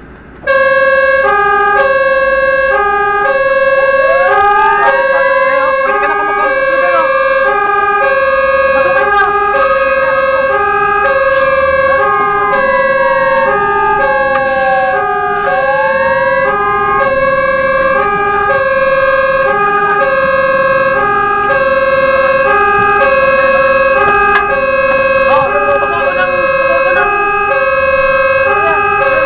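Fire truck sirens switched on about half a second in: a two-tone hi-lo alternating about once a second, with a slow rising and falling wail sweeping over it.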